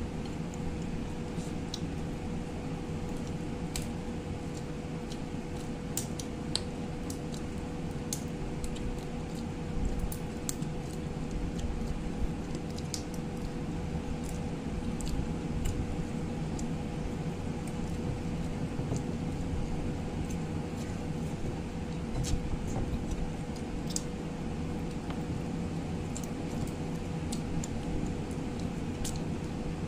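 Eating by hand: chewing and wet mouth sounds as crab and rice are eaten, with many scattered sharp clicks, over a steady background hum.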